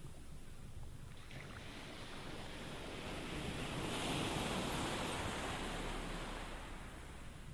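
Ocean waves washing in: a rushing hiss that swells to a peak midway and then draws back.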